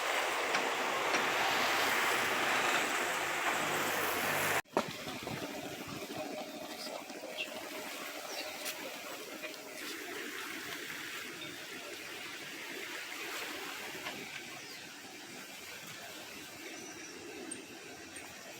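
Harbour water lapping against boats as a steady noisy wash. It is louder for the first four or so seconds, then drops off suddenly and carries on more quietly.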